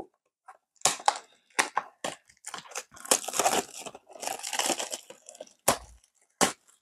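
Packaging of a Donruss football blaster box being torn and crinkled open: a run of tearing and crinkling rustles, with two sharp snaps near the end.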